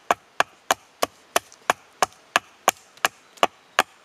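Small hatchet chopping into the end of a freshly cut wooden pole in quick light strokes, about three sharp blows a second, paring away wood to shape a dovetail joint.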